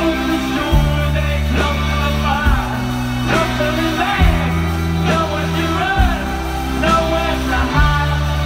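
Rock band playing live, with a male lead singer over electric guitars, a deep held bass line and drums, heard loud through a phone microphone in front of the stage.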